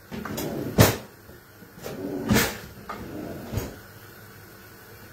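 Four sharp knocks and bumps of things being handled at a kitchen counter, the loudest about a second in, with rustling before it.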